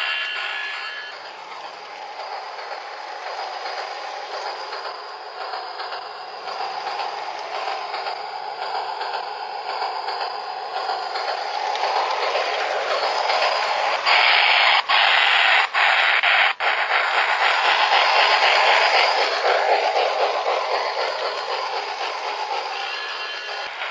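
Garden-railway model steam locomotive running along the track: a steady rattling, scraping noise that grows louder as it comes close, with three brief dropouts in the middle.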